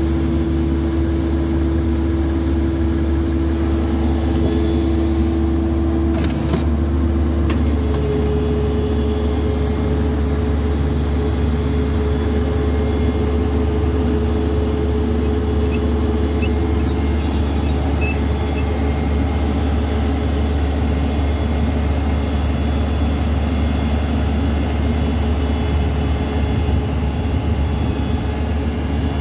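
Ditch Witch JT24 horizontal directional drill's diesel engine running steadily, with a steady whine over it that steps up in pitch about six seconds in.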